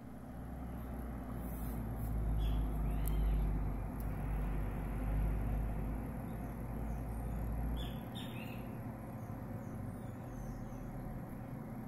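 Low rumble over a steady hiss of background noise; the rumble swells over the first few seconds and drops away about eight seconds in, with a few faint high chirps.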